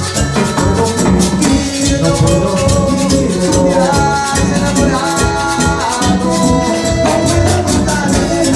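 A Latin band playing an instrumental passage, with steady shaker and drum percussion under held melody notes.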